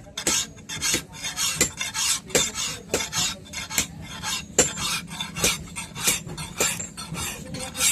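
Steel knife blade being sharpened by hand: rhythmic scraping strokes, about one every three-quarters of a second, each starting with a short metallic clink.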